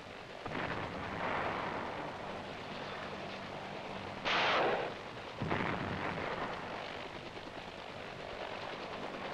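Steady helicopter engine and rotor drone with a short loud blast about four seconds in and another about a second later, the sound of armed-helicopter fire striking the ground.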